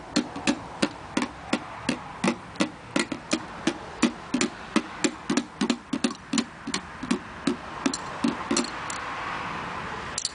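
Steady rhythmic knocking, about three short ringing knocks a second, which stop about eight and a half seconds in and give way to a soft hiss.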